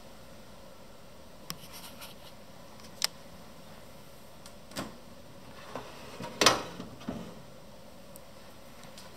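About six scattered sharp clicks and knocks over a steady low hiss; the loudest comes about two-thirds of the way through.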